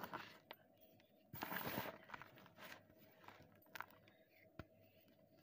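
Fingers crushing and crumbling blocks of gym chalk in loose chalk powder: soft crunches and scattered small crackles, with one longer crumbling crunch about a second and a half in.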